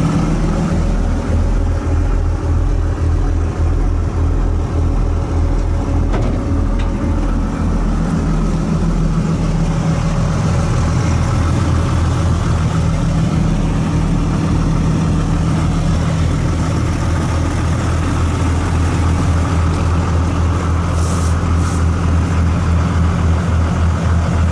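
The John Deere diesel engine of an Orchard Rite Bullet orchard shaker runs steadily with a low, pulsing beat. Two brief high hisses come near the end.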